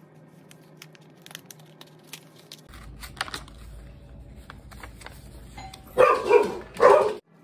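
Faint taps of a pencil point being pressed through a paper journal page, then dogs barking twice, loudly, near the end, set off by a delivery arriving.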